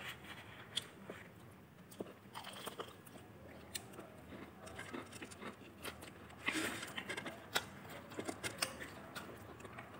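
Faint chewing and crunching on fried chicken, with scattered small clicks and mouth sounds.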